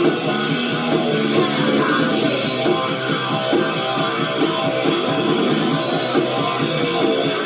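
A punk rock band playing, with electric guitar to the fore.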